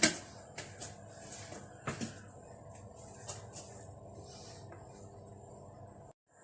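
Light clicks and knocks of kitchen dishes and utensils being handled and set down, a few scattered taps over a faint steady room hum. The sound cuts out briefly near the end.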